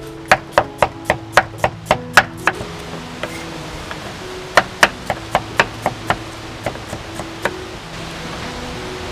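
Kitchen knife chopping through carrot onto a wooden chopping board: two runs of sharp knocks about four a second, the second run fading out, over soft background music.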